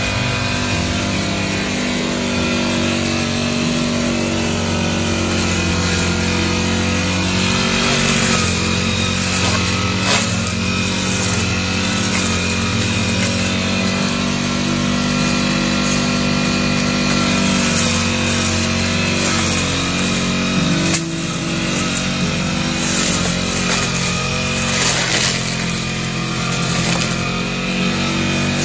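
Brush cutter (motorised grass trimmer) engine running steadily while cutting grass, its pitch shifting a little now and then.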